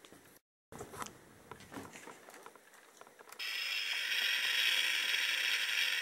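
Scattered plastic clicks as the Supersize Thunderbird 3 toy is handled. About three and a half seconds in, its built-in electronic drill sound effect starts suddenly: a steady, hissing mechanical noise from the toy's small speaker.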